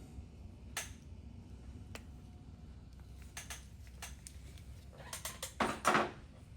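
Small metal tools and parts clinking against a motorcycle engine: scattered light clicks, then a louder cluster of clinks and scraping near the end.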